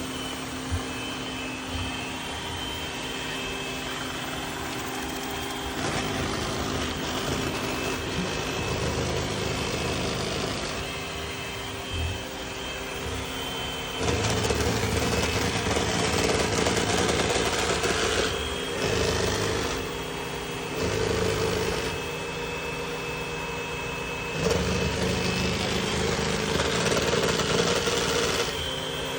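Roomba robot vacuum running with a steady motor hum, broken again and again by louder, rough grinding stretches that last a few seconds each. This is the abnormal noise coming from the machine.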